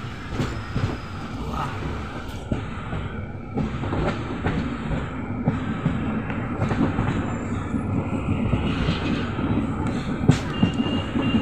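Passenger train running, heard from inside a coach with the window open: a steady rumble with irregular clicks and knocks of the wheels on the track, growing a little louder after a few seconds, and a sharper knock about ten seconds in.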